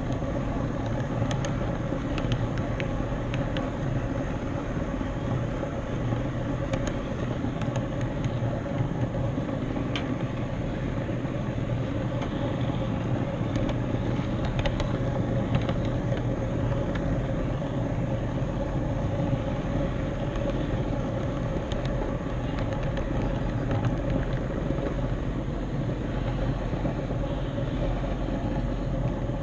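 HO scale model camera train running along the layout's track: a steady mechanical hum and rumble from its motor and wheels, with a few faint clicks in the first half.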